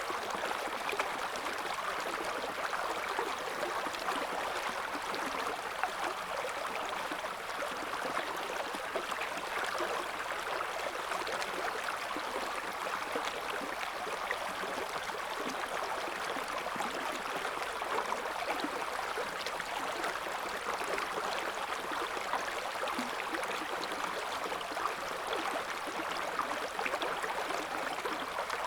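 River water flowing steadily over shallows: a constant burbling rush with many small splashes and gurgles.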